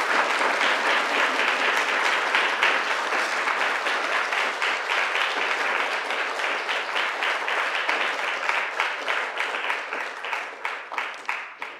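Audience applauding, a dense even clatter of many hands that thins out into scattered separate claps and fades near the end.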